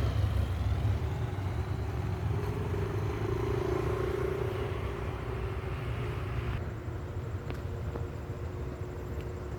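Engine running steadily, a low rumble with a steady hum over it; a hiss above it drops away about six and a half seconds in.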